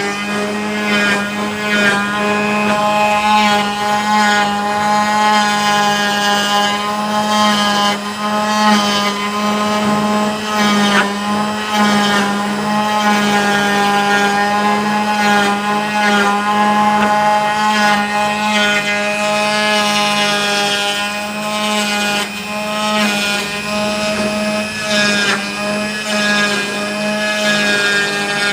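CNC wood router running continuously, its spindle giving a steady hum with higher tones that waver slightly in pitch as it cuts.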